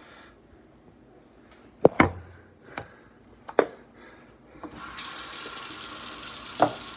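A few sharp knocks, then a kitchen sink faucet turned on about two-thirds of the way in, with water running steadily into the sink.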